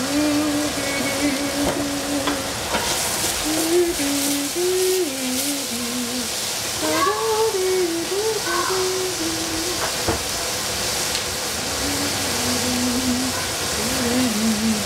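Celery, bell pepper and cabbage strips sizzling steadily in a stainless steel saucepan on a gas burner. A single voice hums a slow tune over it, with no clear words.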